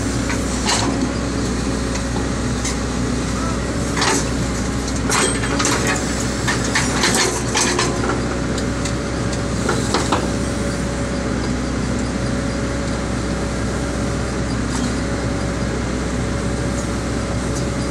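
Excavator diesel engine running steadily under load, with scattered sharp metallic clanks and knocks as the steel track and bucket are worked during track-link refitting, most of them in the middle of the stretch.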